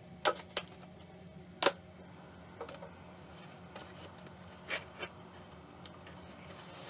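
Packaging of a boxed 3D printer being handled: a handful of sharp, irregular clicks and taps, over a low steady hum.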